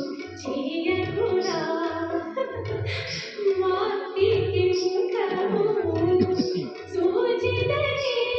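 A woman singing a song with long, bending held notes over a steady drum beat, about two beats a second.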